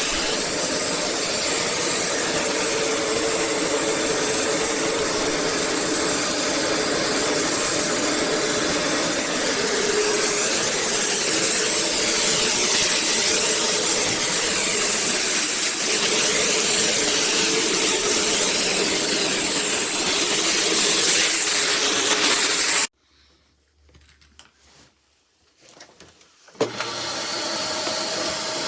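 Eureka Whirlwind NEN110C bagless canister vacuum cleaner running steadily, a loud rushing noise with a high-pitched motor whine. Near the end it cuts out suddenly for a few seconds, then the running sound returns with a slightly different tone.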